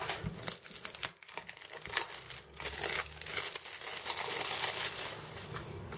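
Clear cellophane shrink-wrap crinkling and tearing as it is peeled off a small product box, in irregular crackles that come thicker in the second half.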